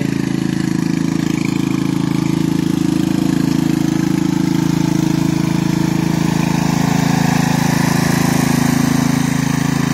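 Bolens riding lawn tractor's engine running steadily as the tractor drives across the lawn.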